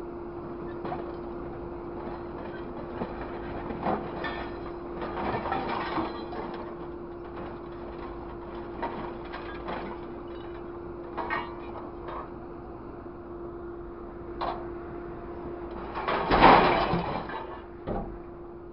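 Grapple truck's engine and hydraulics running with a steady hum, while its orange-peel grab clanks and scrapes through a pile of scrap metal. Near the end comes the loudest sound, a crash of scrap metal lasting about a second as the load drops into the truck bed, then one more clank.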